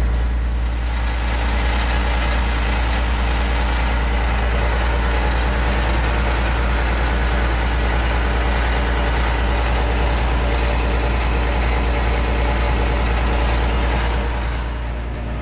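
Diesel engine of a Hitachi ZX470LCH excavator running steadily, heard close up at the open engine bay. It drops a little in loudness near the end.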